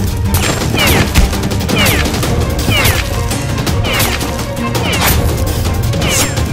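Gunfire sound effects: a steady run of shots, each with a falling whizz about once a second, over background music.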